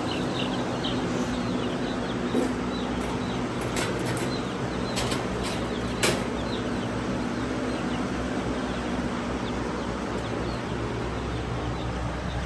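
Chicks peeping faintly in the first second or so over a steady low hum, with a few sharp clicks in the middle, the loudest about four seconds in.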